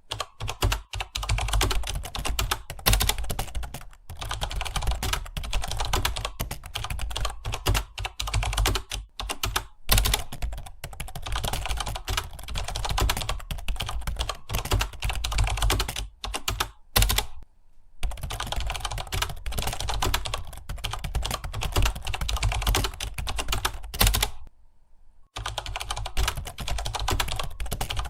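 Fast typing on a computer keyboard: a dense, continuous clatter of keystrokes, broken by two brief pauses, one past the middle and a slightly longer one near the end.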